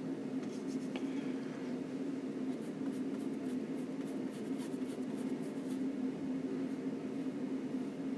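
Oil paint being brushed onto a linen panel with a long flat brush: faint, short scratchy strokes, mostly in the middle of the stretch. Under them runs a steady low hum.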